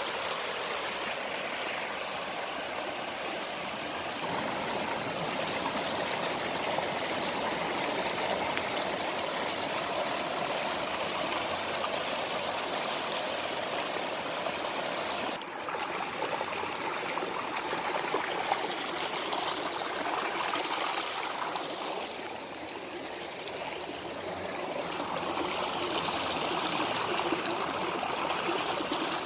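Spring-fed stream water rushing and splashing down a small cascade in a narrow rocky channel, a steady rush of water.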